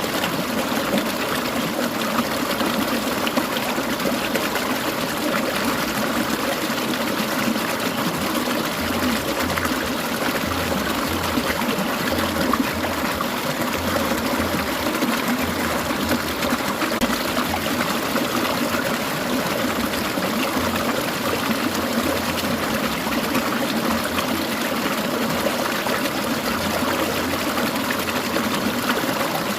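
Clear mountain stream trickling and burbling over rocks, a steady, even water sound.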